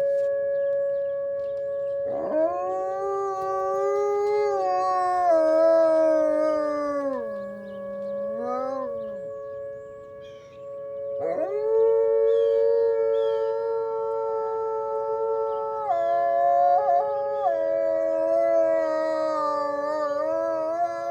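High-content wolfdog howling: two long howls, the first starting about two seconds in and sliding down near the middle, the second starting about halfway and stepping up and down in pitch near the end. A steady unbroken tone sounds beneath them throughout.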